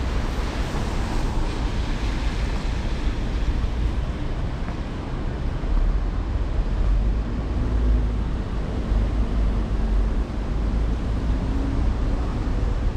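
Busy city street noise in light rain: a steady wash of traffic and tyre hiss, with a low rumble of wind on the microphone.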